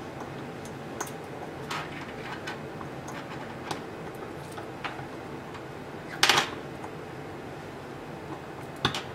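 Small clicks and handling noises of female jumper-wire connectors being pushed onto a relay board's header pins, with a louder short clatter a little past six seconds in and a sharp double click near the end.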